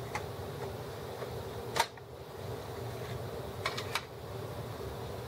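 Hands working the plastic scanner carriage of an HP Officejet R80 loose, giving a few sharp plastic clicks: the loudest a little under two seconds in, and a quick pair near the end. A steady low hum runs underneath.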